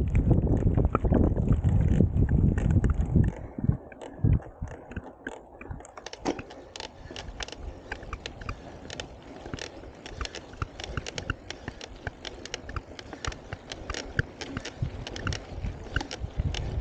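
Mountain bike rolling over a dry, loose dirt trail: wind buffets the microphone for the first few seconds, then it drops away and leaves a dense run of sharp clicks and crunches from the tyres on the dirt and the bike's rattling parts.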